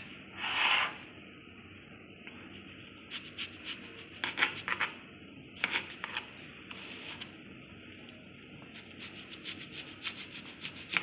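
Knife sawing through the crusts of a stack of white sandwich bread, in several short runs of quick back-and-forth strokes.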